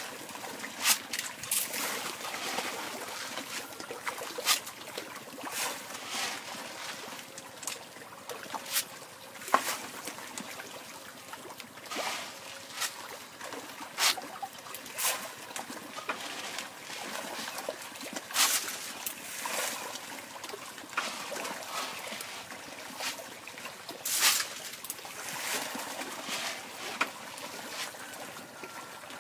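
Catfish splashing and plopping at the water surface while feeding, in scattered sharp splashes every second or so over a steady watery hiss.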